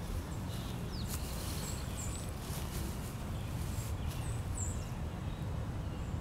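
Outdoor ambience: birds chirping now and then over a steady low rumble.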